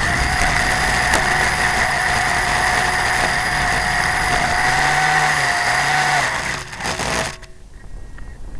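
Small motor of a remote-control model running fast with a steady high whine, which fades and then cuts off about seven seconds in.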